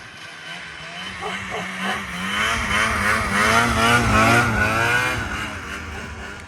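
2001 Ski-Doo MXZ 600 snowmobile's two-stroke twin engine running, its pitch wavering quickly up and down as the revs change. It swells to its loudest about four seconds in, then falls away.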